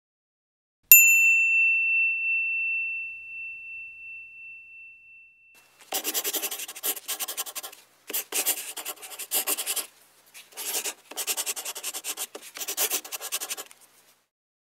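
A single bell-like ding about a second in, ringing out clearly and fading over several seconds. Then chalk scratching on a chalkboard in runs of quick strokes, with short pauses, as handwriting is written out.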